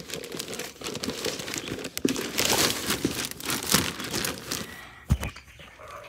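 Crinkling and rustling handling noise close to the microphone, loudest midway and easing off, with a single knock about five seconds in.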